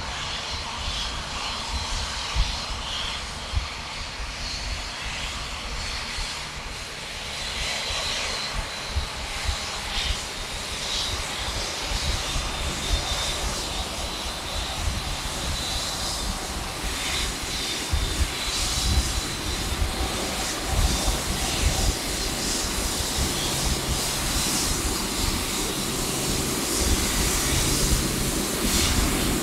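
Boeing 747-8F freighter's four GEnx-2B turbofans running at low taxi power: a steady jet rumble with a thin high fan whine, growing slightly louder toward the end as the jet comes closer.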